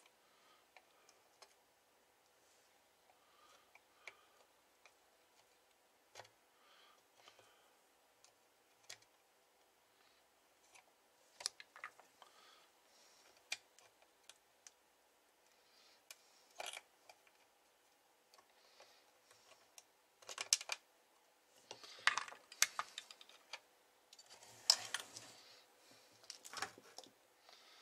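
Scattered light clicks and taps of a screwdriver and meter probe working on an amplifier's circuit board. From about two-thirds of the way in, louder clusters of clatter as tools are put down and small parts handled on the bench.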